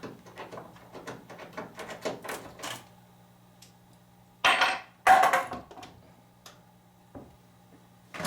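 Clinking and rattling of tools and metal hardware, then two loud clanks about half a second apart near the middle, with a faint steady hum underneath.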